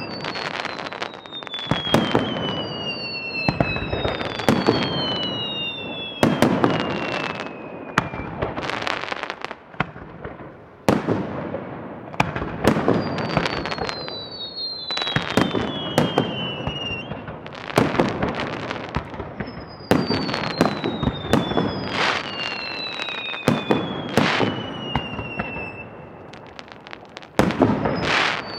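Aerial fireworks shells bursting in quick succession, a sharp bang every second or two, among high whistles that slide down in pitch over two or three seconds each.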